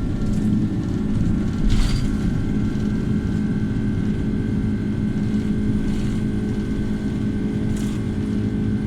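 Steady drone of the Airbus A330-300's jet engines and airflow heard inside the passenger cabin, with a short rattle about two seconds in.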